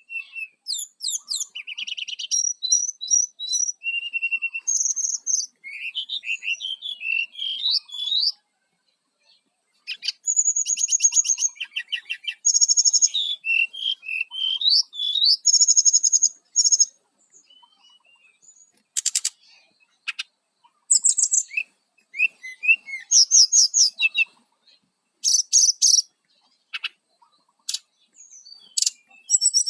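Brown-chested jungle flycatcher singing: a rapid, varied string of high chirps, quick trills and whistled phrases, broken by a pause of about a second and a half about a third of the way through.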